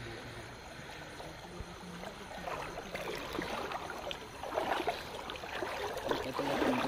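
Feet wading and splashing through a shallow rocky stream, with water running over the stones; the splashing gets busier and louder from about four seconds in.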